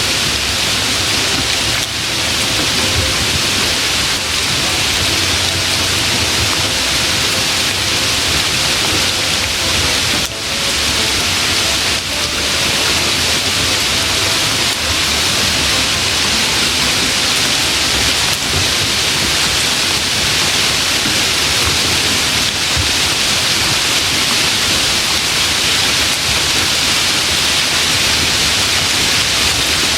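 Heavy rain falling steadily on a paved street and rooftops, a dense, even hiss.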